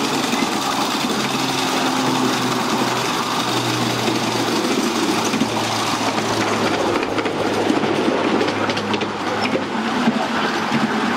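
Miniature ride-on railway train running along the track: the wheels rumble on the rails under a low steady engine hum that dies away about two-thirds of the way through, with scattered clicks over the last few seconds.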